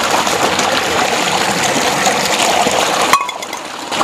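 Water gushing steadily from a large pipe outlet into a concrete tank. About three seconds in the sound drops away abruptly for most of a second, then returns.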